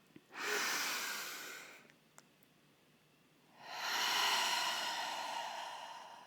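A woman breathing deeply and audibly close to the microphone during guided breathwork. A breath drawn in about half a second in, then after a pause a longer breath out from about three and a half seconds in, fading slowly.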